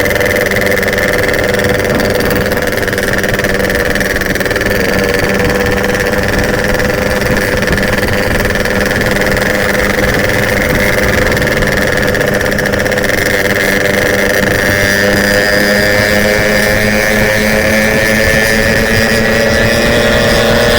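Yamaha RX-King's 135cc two-stroke single-cylinder engine running steadily under way. Its pitch rises over the last few seconds as it speeds up.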